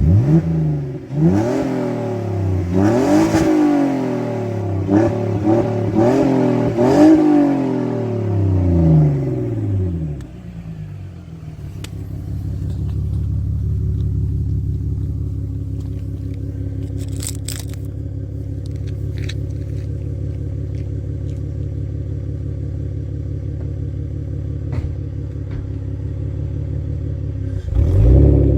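BMW E46 320Ci's 2.2-litre straight-six running through an exhaust with the rear silencer deleted. It is blipped up and down several times over the first ten seconds or so, then settles into a steady idle, with one more rev near the end.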